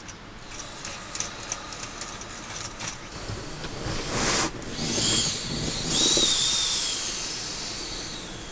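Air hissing and whistling through the valve of an inflatable car sleeping mat as it is pressed down, after a few soft handling clicks and rustles. The hiss builds about halfway through, carries a thin wavering whistle, and fades near the end.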